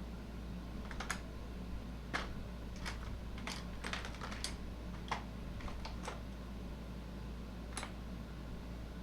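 Scattered light clicks and taps from hand work on the scooter, about a dozen, irregularly spaced, most of them between one and six seconds in and one more near the end, over a steady low hum.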